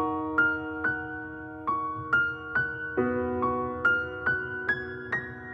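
Background music: a slow, sad piano intro, with single notes struck about twice a second over a held chord.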